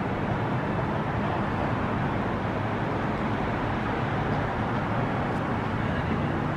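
Steady city traffic noise: a continuous low hum and rumble with an even hiss over it, and no distinct bird calls standing out.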